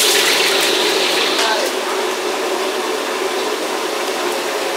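Steady rushing of a gas wok burner, with hissing from frying in the wok that is strongest for the first second and a half and a few metal clinks of a spatula against the wok. Voices murmur in the background.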